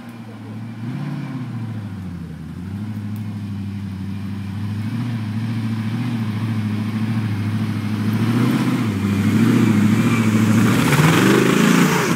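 Modified off-road Jeep's engine running under load on a dirt climb, its pitch rising and falling with the throttle. It grows steadily louder as the Jeep comes up close, loudest near the end.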